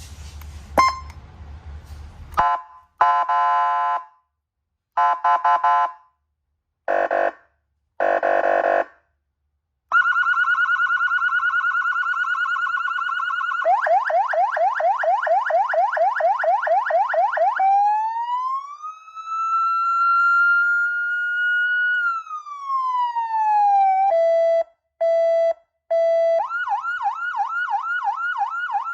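Electronic siren module played through its speaker, cycling through its tones: five short horn-like blasts, a steady held tone, a fast yelp, a slow wail rising and falling, three short beeps, then a rapid warble near the end.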